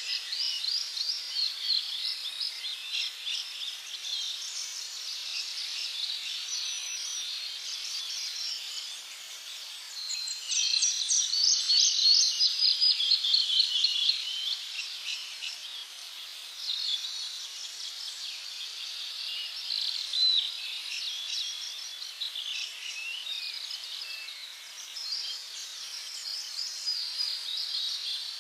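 A dense chorus of tropical birds chirping and trilling, many quick overlapping calls at once, busiest and loudest about a third of the way in.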